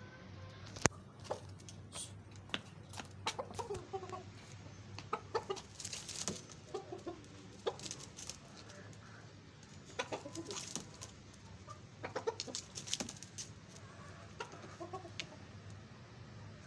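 White rooster and hen clucking softly in short bursts every few seconds, with many sharp taps of beaks pecking at a concrete floor; one sharp click about a second in is the loudest sound.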